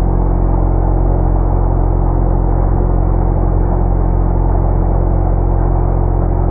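Automatic car wash tunnel running: a steady machine hum under a continuous rush of water spray and cloth curtains and brushes scrubbing over a car.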